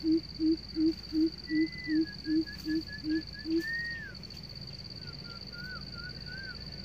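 Greater coucal calling: a run of about ten evenly spaced low hooting notes, some three a second, that stops a little past halfway. A smaller bird gives short whistled phrases alongside, over a steady high-pitched insect trill.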